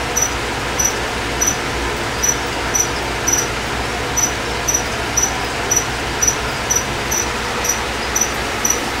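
A cricket chirping steadily, short high chirps about twice a second, over a steady background hiss.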